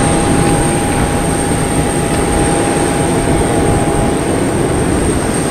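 Airliner cabin noise: a steady roar of engines and air with a constant high whine and a lower steady tone over it.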